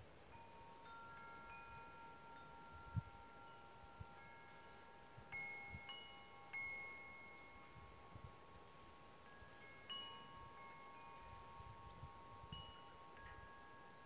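Wind chimes ringing faintly, several different notes struck at irregular moments, each ringing on for several seconds. There is a brief low thump about three seconds in.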